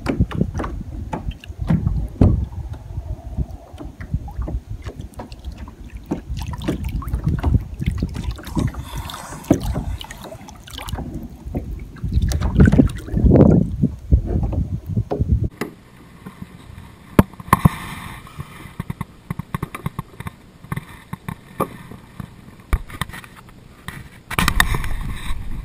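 Water lapping and sloshing against a plastic kayak hull, with a low rumble of wind on the microphone and scattered knocks and clicks. About halfway through the sound drops abruptly to a quieter hiss with occasional clicks.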